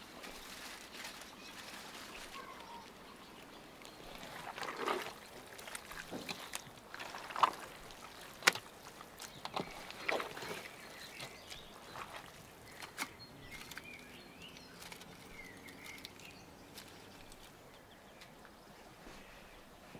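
Hands squishing and turning pieces of marinated raw lamb and onion in a stainless steel bowl, with a few sharp clicks against the metal, the loudest two in the middle. Birds chirp faintly in the background.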